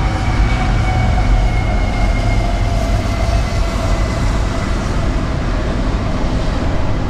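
CSX freight trains passing on elevated double track: a steady, loud rumble of cars rolling over the rails, with a thin sustained tone running over it for most of the time.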